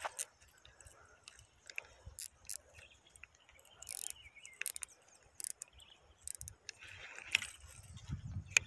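Scattered small clicks and taps from a baitcasting reel being handled, with a sharper click near the end.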